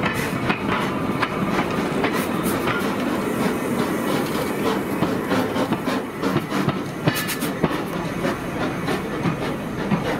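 Replica of Stephenson's Rocket steam locomotive running past with its passenger wagon: wheels clicking and clattering over the rails, with steam hissing.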